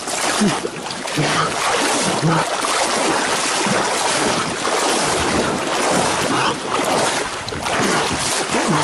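Continuous rushing water sloshing and splashing around a small rowing boat, mixed with wind buffeting the microphone.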